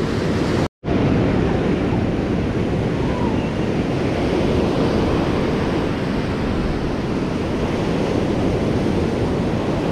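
Ocean surf breaking and washing up the beach, a steady rush, with wind buffeting the microphone. The audio cuts out completely for a moment just under a second in.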